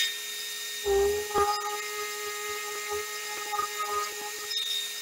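Random orbital sander running with a steady whine, pressed onto the chest's wooden front about a second in and sanding off the worn finish.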